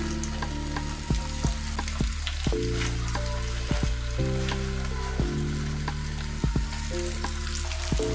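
Breadcrumb-coated soya chunk cutlets sizzling as they deep-fry in hot oil, a steady hiss with small pops, under background music with a steady bass line.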